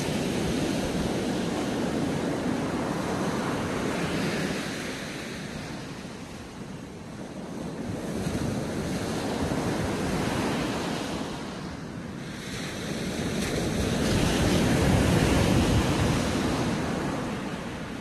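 Sea surf breaking and washing up a sandy beach, rising and falling in slow surges, with the loudest wave about three-quarters of the way through.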